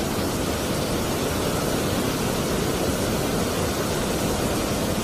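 Fast, muddy river water rushing over and between rocks in small rapids: a steady, even rush.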